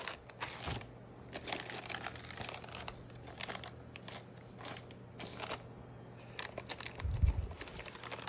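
Packaging being handled as a model train locomotive is lifted out of its box: irregular crinkling and rustling of wrapping against foam, with a dull thump about seven seconds in.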